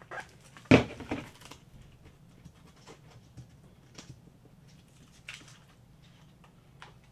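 A PFA film sheet being pulled out of its packaging: a loud, short burst of rustling noise about a second in, then faint scattered rustles and small clicks of handling.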